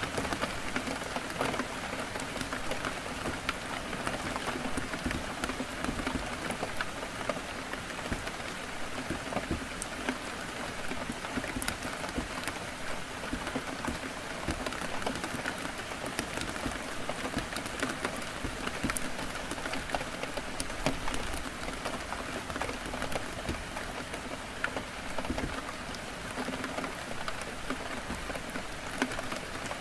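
Heavy rain falling steadily, dense patter with many individual drops ticking sharply against a window.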